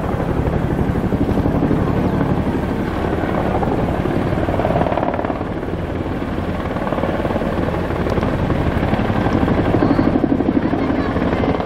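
Military helicopters flying overhead, a tandem-rotor CH-47 Chinook slinging a giant flag among escort helicopters: a steady, fast rotor chop that swells slightly near the end.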